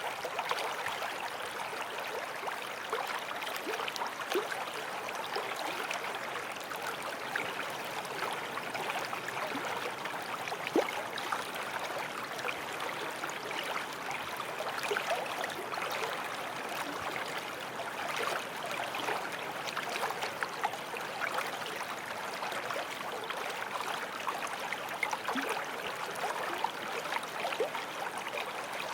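A running creek: a steady rush of water with many small splashes and gurgles. One splash stands out about eleven seconds in.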